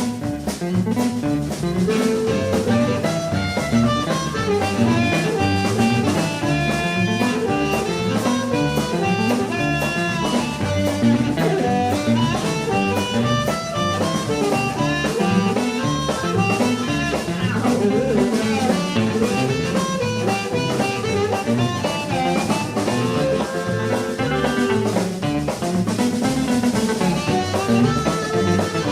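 Live blues band playing an instrumental break with no singing: a drum kit keeps a steady beat under bass and guitar, with a busy melodic line on top.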